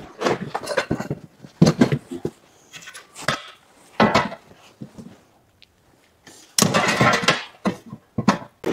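Scattered sharp knocks and a short scraping rustle as the rubber belt and steel frame of a farm belt elevator are handled.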